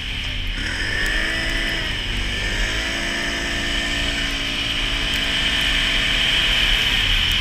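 Can-Am Renegade 570 ATV's V-twin engine accelerating as it drives through snow. Its pitch climbs, eases off about two seconds in, then climbs again and holds steady, with wind rumble on the helmet camera's microphone.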